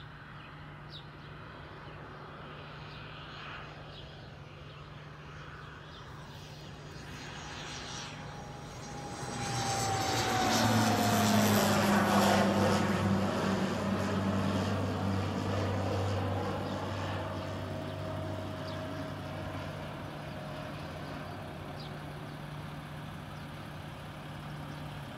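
Crop-duster airplane flying low overhead. Its engine grows louder from about a third of the way in, is loudest near the middle as its pitch falls in a downward whine, then fades away. A steady low hum runs underneath throughout.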